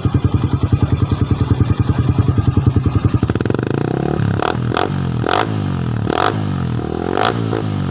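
Suzuki Raider 150's single-cylinder four-stroke engine through an Apido power pipe with the silencer removed. It idles with an even, pulsing beat, then from about three seconds in it is revved up and down repeatedly. Sharp pops crack from the open exhaust between the revs.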